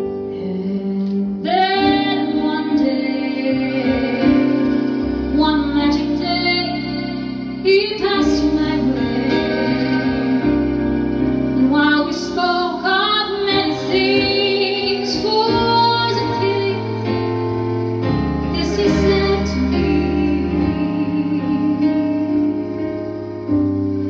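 Live band music: a woman singing a melody with vibrato into a microphone, accompanied by violin and held low bass notes.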